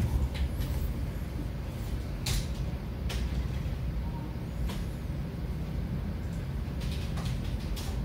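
Low steady background rumble with a few scattered faint clicks.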